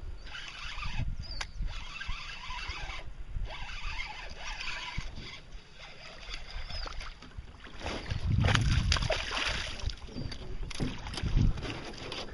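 Water sounds and low rumbling handling noise as a hooked largemouth bass is fought in, louder for a couple of seconds about eight seconds in. Near the end the bass thrashes and splashes at the surface.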